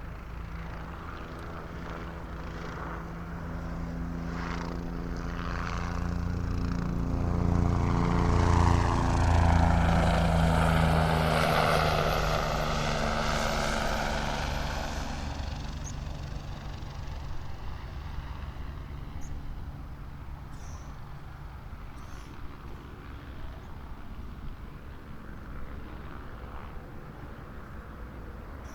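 An airliner passing low overhead on its landing approach. Its engine noise builds over several seconds to a peak, with pitches sliding as it goes by, then fades away.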